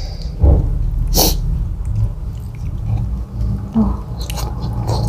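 Close-miked mouth sounds of eating spicy fried chicken by hand: chewing and smacking, with two short sharp noises about half a second and a second in.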